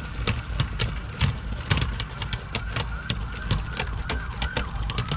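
World Spriggan and Super Hyperion Beyblade tops spinning and clashing in a stadium: a rapid, irregular run of sharp clicking hits over a faint high spinning whine.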